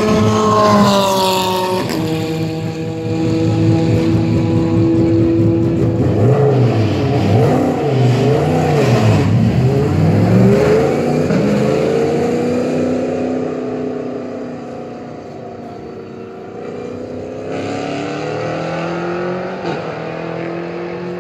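Super Aguri SA06 Formula 1 car's Cosworth V10 running while stationary. The revs fall back during the first two seconds. A few seconds later comes a run of quick throttle blips, the pitch swinging up and down. It then settles to a steady, lower note, and the revs rise a little again near the end.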